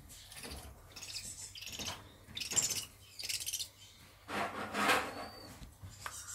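Juvenile tawny owl giving short raspy hisses, four or five in a row, while it is held and examined, with rustling of its feathers against gloves and a steel table. The hissing is a stressed young owl's defensive sound.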